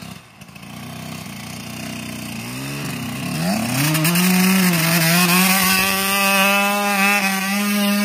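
Suzuki dirt bike's engine revving: faint at first, it wavers in pitch about two and a half seconds in, then climbs and is held at high, steady revs as the rear wheel spins in deep sand.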